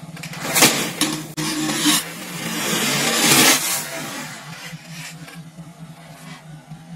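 Pressurised plastic water bottle venting gas: a sudden burst about half a second in, then a hissing spray of water jetting out of the bottle that swells to its loudest a little after three seconds in and fades away.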